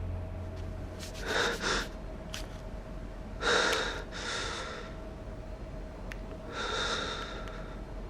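A person breathing heavily: three slow, noisy breaths in and out, about every two and a half seconds.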